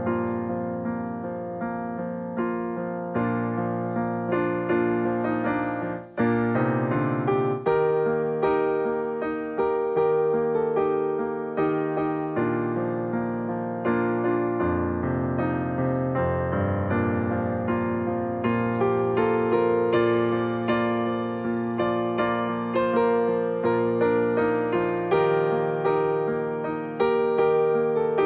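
Piano playing a continuous passage of chords and melody, with many separate struck notes that ring and fade, and a short break about six seconds in.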